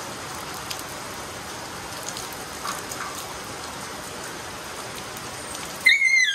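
Water poured from a plastic dipper over a dog, streaming off it and splashing steadily on a wet tiled floor. Just before the end the splashing cuts off and a loud, high, wavering voice-like cry starts.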